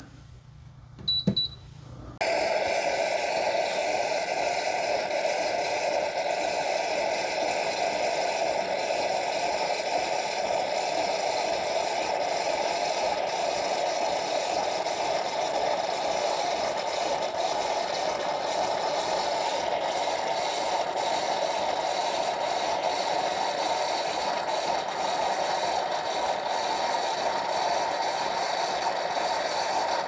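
Gourmia automatic espresso machine frothing milk from its built-in milk tank into a glass mug for a latte: a short beep about a second in, then the frother starts about two seconds in and runs steadily.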